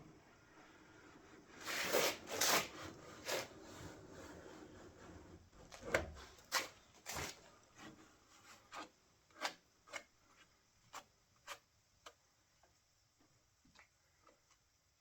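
Short hand-worked rubbing strokes against the car's rear bodywork around the light, as body filler is worked on. A few heavy strokes come about two seconds in, then lighter ones follow roughly every half second to a second and die away toward the end.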